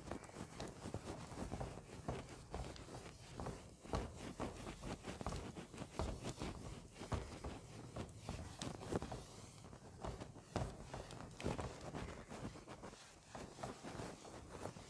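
A cloth duster rubbing marker writing off a whiteboard: a fairly faint run of quick, uneven scrubbing strokes.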